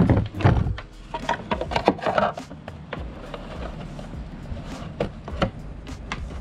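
Hands handling a fishing kayak's plastic livewell fittings: a small battery being set into its holder, then the rubber livewell cover pressed down and its bungee cord hooked over it. An irregular run of knocks, clicks and rubbing, loudest in the first second.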